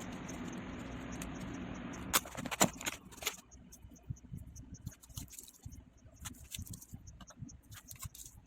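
Steady hiss that stops about two seconds in. A burst of rustling and clicks follows as something is handled, then lighter scattered clicks and scrapes.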